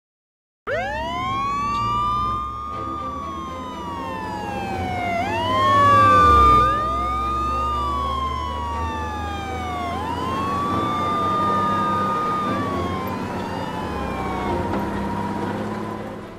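Several police sirens wailing at once, their rising and falling tones overlapping, over a low vehicle engine rumble. They start about half a second in after a moment of silence, and the rumble swells about six seconds in.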